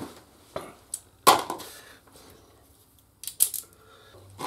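Sharp clicks and taps of a small Torx bit driver and screws being handled: one loud tap about a second in, then a quick cluster of clicks near the end.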